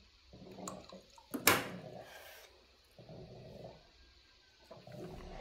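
A sharp knock about one and a half seconds in, then a child drinking water from a glass, gulping in two short spells.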